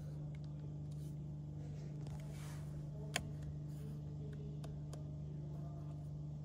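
Clicks of a car's dashboard or infotainment controls being pressed, a few faint ones and one sharper click about three seconds in, over a steady low hum in the car cabin.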